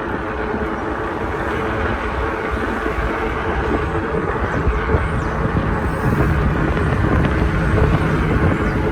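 Steady street noise heard from a moving bicycle: city traffic and road noise, with a constant low hum.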